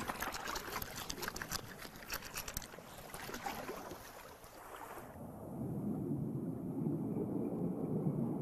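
Water sloshing with a dense crackle of bubbles, which gives way about five seconds in to a low, steady underwater rumble.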